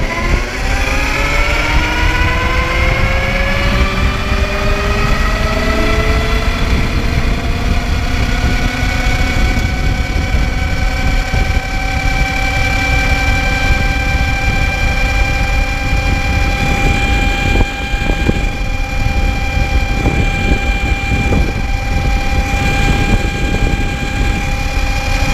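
2009 Zero MX electric motorcycle's motor and chain drive whining under acceleration, geared with a 22-tooth sprocket. The whine climbs in pitch over the first several seconds, then holds steady at cruising speed. Wind and road rumble run underneath.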